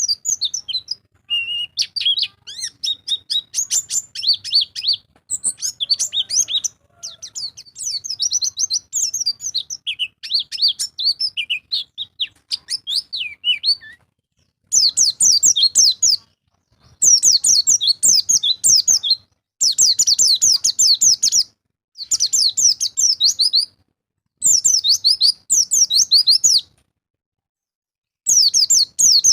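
White-eye (pleci) singing: rapid, high twittering chirps in a steady stream for the first half, then loud bursts of fast chattering song, each about two seconds long, separated by short pauses.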